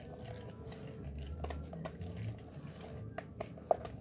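Spoon stirring a wet tuna and cream cheese mix in a plastic bowl: soft squelching with a few light clicks of the spoon against the bowl, the sharpest near the end.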